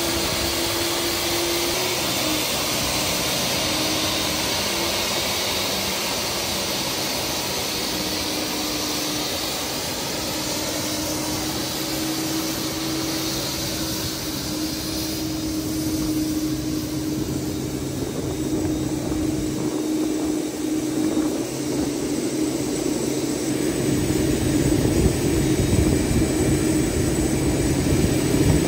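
Boeing 747-8's GEnx-2B turbofan running on the ground during an operational check after an engine change: a steady jet rush with a wavering whine, growing louder over the last few seconds.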